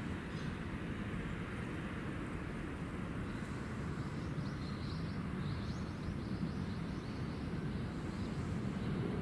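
Steady low rumble of rail traffic on a busy multi-track line, with faint high chirps about four to six seconds in.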